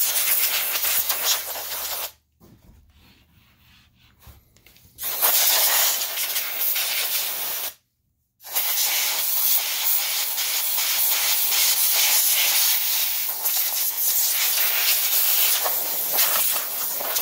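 Compressed-air blow nozzle hissing as it blows dust out of the inside of an opened DLP projector. It goes in three blasts: a short one, a pause of about three seconds, a second blast, then a long steady one after a brief break.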